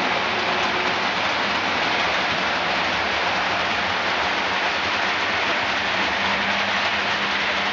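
A steady, even hiss with no separate knocks or clicks, with a faint low hum coming in about six seconds in.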